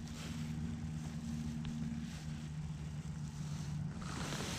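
A boat's motor humming steadily with a low even drone; a second, slightly higher tone in the hum drops out about two seconds in.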